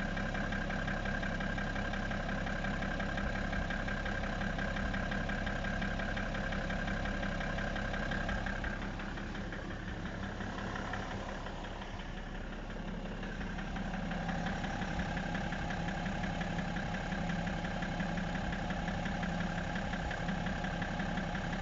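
BMW E60 535d's 3.0-litre twin-turbo diesel straight-six idling with a rapid knocking in its running, a knock the owner cannot identify. It turns a little quieter for a few seconds around the middle, then returns to the same sound.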